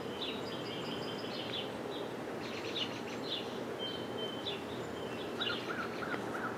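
Steady background hiss with many faint, short, high chirps scattered through it, like small birds calling.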